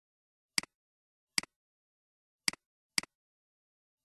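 Computer mouse clicking: four sharp clicks at uneven intervals, each a press followed by a softer release tick, with dead silence between.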